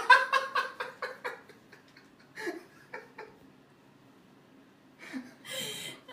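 A person laughing in a quick run of pulsed bursts, then a few quieter laughs. A breathy, hissy burst comes about five seconds in.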